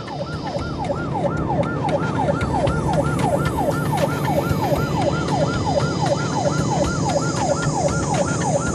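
Police car siren on a fast yelp, sweeping up and down about three times a second, over steady engine and road noise from the pursuing car at speed.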